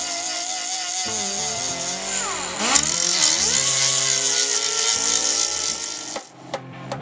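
Air die grinder with a small cutoff wheel grinding down a weld on a steel motorcycle fuel tank: a steady whine with a hiss over it, the pitch dipping as the disc bites in. The grinding stops about a second before the end, and music with a regular beat comes in.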